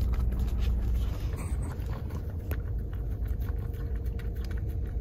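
Mini goldendoodle puppy licking whipped cream from a cup, a run of small quick clicks, over the low rumble of a car cabin.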